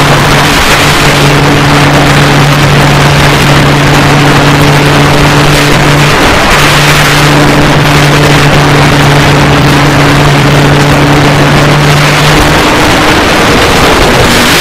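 Loud wind rushing over the on-board action camera of a foam RC glider in flight, with the steady hum of the plane's electric motor and propeller. The hum drops out briefly about six seconds in and stops near the end, leaving only the wind.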